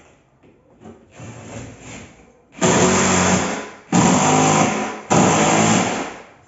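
Power drill running in three loud bursts of about a second each, back to back in the second half, after a quieter, uneven run in the first half.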